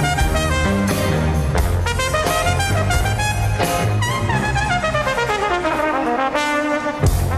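Live brass-led band music, with trumpets and trombones playing a fast riff over bass and drums. A little past halfway the bass drops out and the brass slides down in one long falling glide, and the band comes back in with a loud accented hit near the end.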